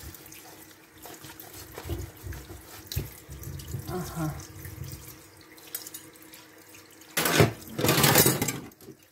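Kitchen tap running in a thin stream into a stainless steel sink over a fish being cleaned by hand, with louder splashing for about two seconds near the end.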